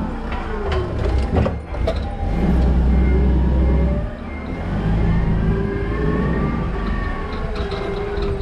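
Toyota counterbalance forklift running as it drives with a pallet load: a low rumble that swells and eases, with whining tones that rise and fall with speed. A few knocks come about a second and a half in.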